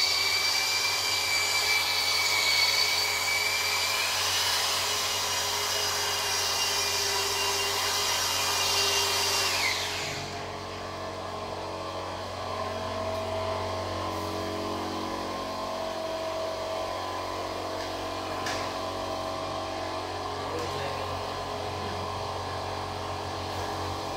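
Handheld electric polishers with round buffing pads polishing an oxide floor, running with a steady high motor whine. About ten seconds in, one machine winds down with a falling pitch, leaving a quieter, lower hum running.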